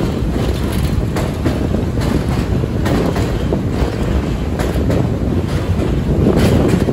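NYC Subway D train running along elevated track: a steady low rumble with occasional sharp clicks from the wheels passing over rail joints.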